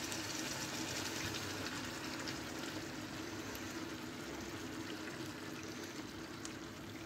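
Spiced sauce poured from a bowl over the vegetables in a hot clay tagine, a steady hiss of liquid and sizzling that slowly fades.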